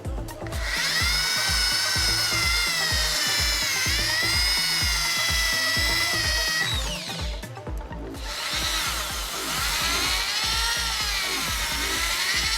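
Small electric rotary power tool spinning up and running at high speed on metal work, its whine wavering in pitch as it is loaded. It spins down about seven seconds in and starts again a second later. Background music with a steady beat plays underneath.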